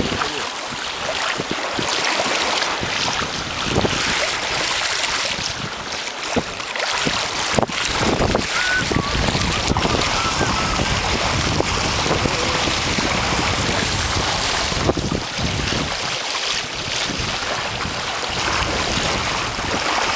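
Wind buffeting the microphone over the rush and splash of choppy water along the hull of a sailing sea kayak under way, with a couple of brief thumps.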